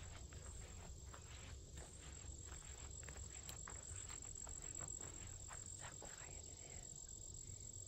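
Footsteps crunching through dry leaf litter and brushing undergrowth on a woodland trail, about two steps a second, easing off about six seconds in. A steady high insect trill, like crickets, carries on behind.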